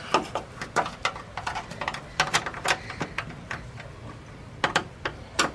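Ratchet wrench clicking in short, irregular runs while cinching up the small 8 mm nuts behind a plastic VW Beetle taillight housing.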